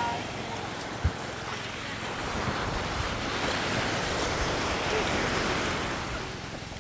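Small waves washing up on a sandy beach and over rocks: a steady rush of surf that swells in the middle and eases off near the end, with a single low thump about a second in.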